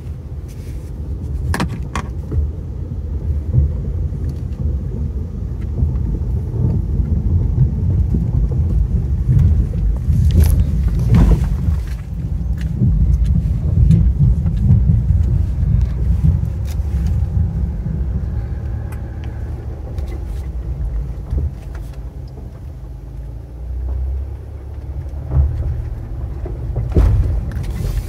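Mazda all-wheel-drive car driving on a rough road: a steady low rumble, with a few sharp knocks and clunks from bumps.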